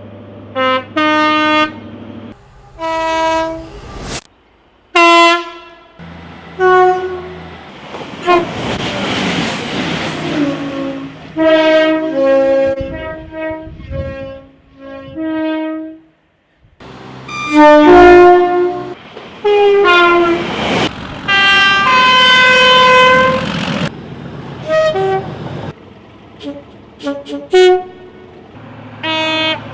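A string of loud train horn blasts, including two-tone horns, each lasting one to a few seconds at different pitches, some sounding two or more notes together. Several end in abrupt cuts, and the rushing noise of a passing train runs under some of them.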